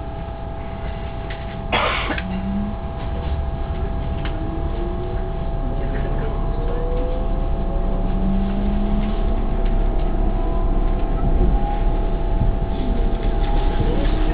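S-Bahn electric train heard from inside the passenger coach, running and picking up speed: a steady rumble with constant whine tones and whines that glide up in pitch as the traction drive accelerates, growing gradually louder. A short loud burst of noise about two seconds in.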